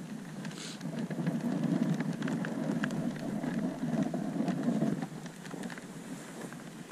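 Dog sled runners scraping and hissing over packed snow as the husky team pulls. The sound is louder for a few seconds in the middle, with scattered small clicks.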